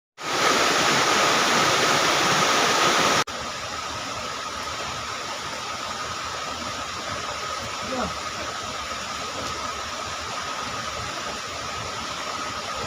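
Rushing river water, a steady roar with no rhythm and a thin steady high tone through it. It is loud for about three seconds, then cuts abruptly to a quieter stretch of the same rush.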